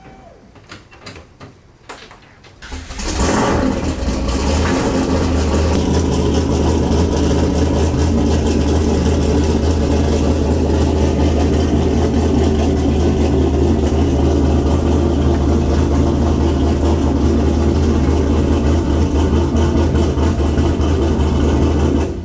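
A Corvette's engine starts about three seconds in, after a few sharp clicks, then idles loud and steady with a deep low hum.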